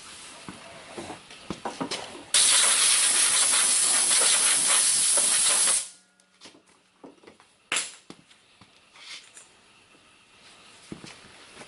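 A loud, steady hiss of pressurised spray for about three and a half seconds, starting and stopping abruptly, used to clean the brake parts. Scattered light clicks and knocks come before and after it.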